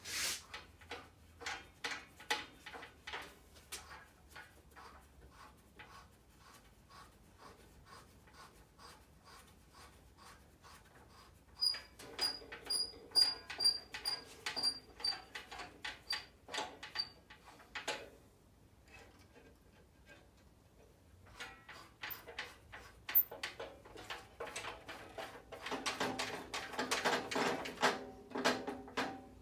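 Blade-tension knob of a DeWalt 876 bandsaw being wound down to slacken the blade for a blade change, giving a long run of small clicks. Partway through comes a string of short high squeaks, about two a second, for several seconds. Near the end there is louder rattling and knocking from handling the saw.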